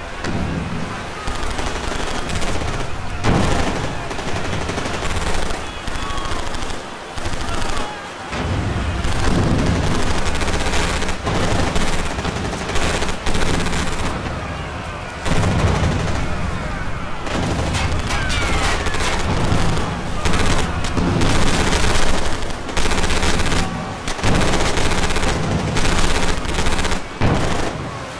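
Battle sound effects: bursts of rapid gunfire mixed with low booms, dense and continuous.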